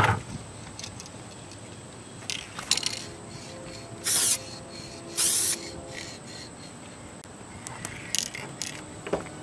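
Aerosol spray paint can hissing in two short bursts about a second apart, paint being sprayed onto the car's quarter panel.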